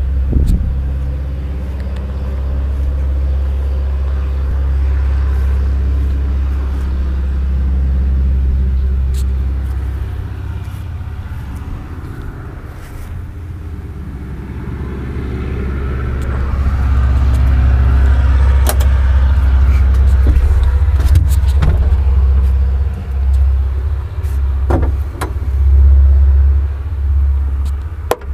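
A steady, low droning hum of running machinery. It grows louder from a little past the middle and wavers in loudness near the end, with a few sharp clicks and knocks in between.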